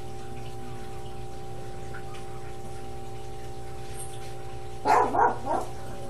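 A dog barks three times in quick succession near the end, over a steady low hum.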